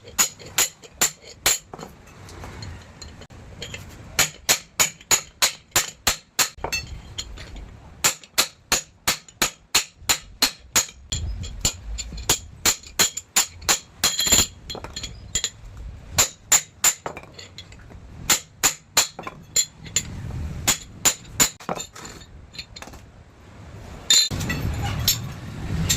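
A hammer striking metal repeatedly, in runs of sharp ringing blows at about three to four strikes a second, with short pauses between runs.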